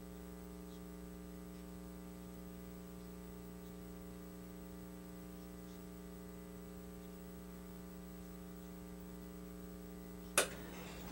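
Steady electrical mains hum with its overtones on the broadcast audio, unchanging throughout, with one sharp click near the end.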